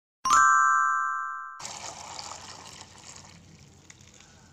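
A bright chime rings out and dies away, cut off after about a second and a half. Then liquid splashes and hisses as hot chocolate pudding mixture is poured into a metal loaf tin, slowly fading.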